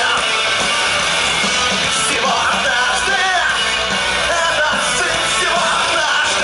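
Live rock band playing loudly over a PA, with a singer's voice carried over the guitars and drums.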